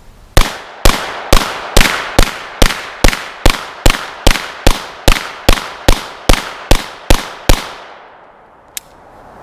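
Semi-automatic pistol fired in one rapid, steady string of about eighteen shots, roughly two and a half a second, with no pause for a reload: a demonstration of the autoloader's magazine capacity. About a second after the last shot there is a single small sharp click.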